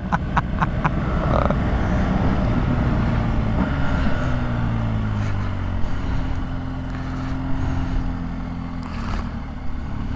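BMW R1200GS flat-twin boxer engine running under way, its pitch gliding up and down with the throttle, over a steady rush of wind and road noise. A quick regular ticking, about six a second, stops about a second in.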